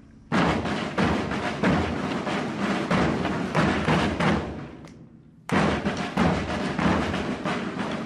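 A group of Portuguese bombos, large rope-tensioned bass drums, beaten with sticks together in a steady marching rhythm. The drumming dies away about four seconds in and starts again sharply about a second later.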